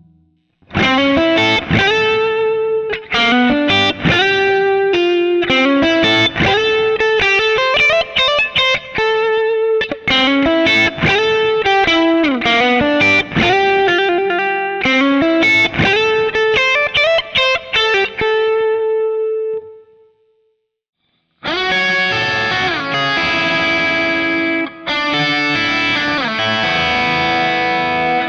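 Overdriven electric guitar through an amp profile of a Bad Cat Hot Cat 40 (KT88 power valves): a Les Paul-style humbucker guitar plays a lead line of single notes and bends that stops about twenty seconds in. After a second's pause, an offset guitar comes in with denser, more distorted chords that ring together.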